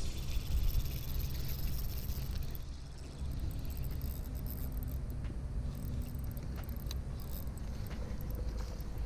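Jacket sleeve rubbing and rustling against the microphone as a spinning reel is wound in, a steady low rumble with a few faint ticks.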